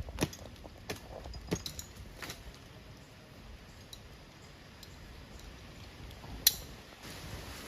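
A few scattered sharp clicks and knocks, several in the first couple of seconds, then one much louder sharp click near the end; no chainsaw running.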